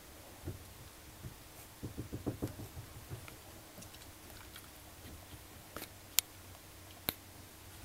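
Newborn Cavalier King Charles Spaniel puppies and their mother shifting about on a towel: faint soft rustles and low thumps, with a quick cluster of them about two seconds in. A few sharp clicks come near the end.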